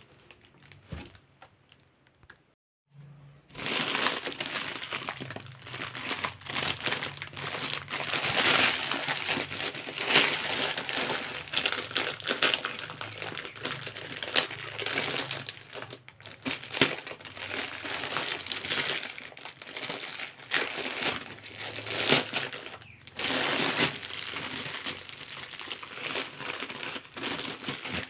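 Clear cellophane gift wrap crinkling and rustling as it is handled and pulled open by hand, an irregular run of crackles that starts about three seconds in after a short quiet.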